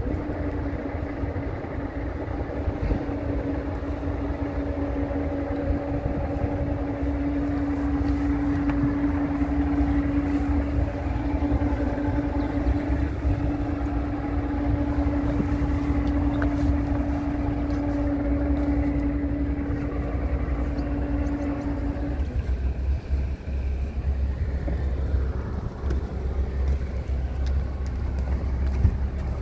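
Sailboat's auxiliary engine motoring in to dock, a steady hum that cuts out about 22 seconds in, with wind rumbling on the microphone.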